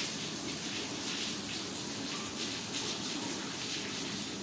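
Drops of rainwater falling steadily into a puddle: a continuous splashing hiss.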